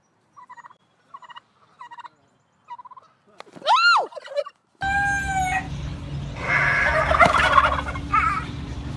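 Turkeys gobbling in several short rattling bursts, then one loud call that rises and falls. About five seconds in, the sound cuts abruptly to a noisier background with more fowl calls.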